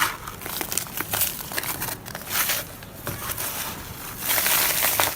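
Dry red dirt chunks crumbling and crushing into powder, with gritty crackling and crunching and a longer, louder gritty rush near the end.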